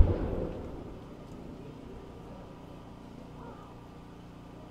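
Aerial fireworks shell going off with one loud boom, its rumble and echo dying away over about a second.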